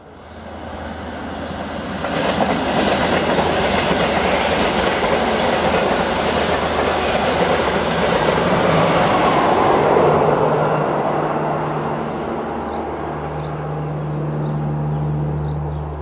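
Train on the line through the station: rumble and wheel noise on the rails build over the first two seconds, stay loud, then ease off after about ten seconds. A steady low hum remains, with a few short high squeaks near the end.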